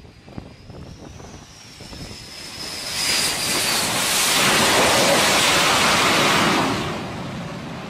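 Carrier fighter jet landing on the flight deck: a thin jet whine over wind on the microphone grows into a loud jet engine roar about three seconds in as the jet rolls past close by, then eases off near the end.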